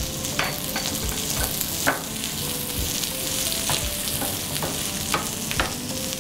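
Sliced capsicum and onions sizzling in hot oil on a flat tava, stirred with a wooden spatula that scrapes and knocks against the pan several times.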